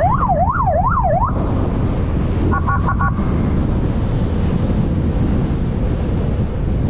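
Police motorcycle siren yelping rapidly up and down, about three sweeps a second, cutting off about a second in; a few short electronic beeps follow around three seconds in. Steady wind rush over the microphone and the motorcycle running underneath.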